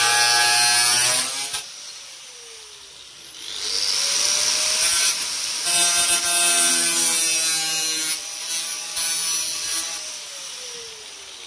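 Handheld electric power tool cutting corner reliefs into sheet metal, with a harsh, hissing cutting noise. The motor is released about a second in and winds down with a falling whine. It spins back up a couple of seconds later, cuts again, and winds down once more near the end.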